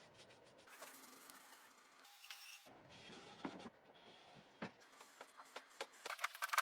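Faint scattered clicks and light taps, with a quicker run of them in the last second.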